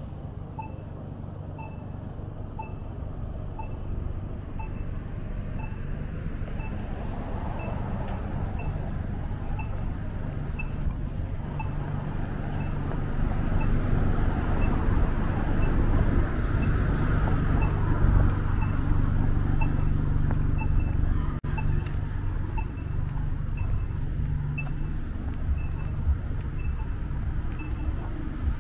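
City street traffic: cars passing over a steady low engine hum, growing loudest around the middle as a vehicle goes by. A short high electronic tick repeats evenly, a little more than once a second.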